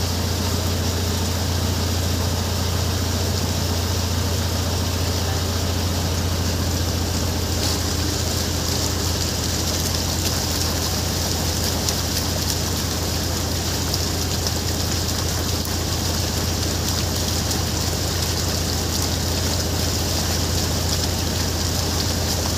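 Boat under way: a steady engine drone with a constant rush of wind and water.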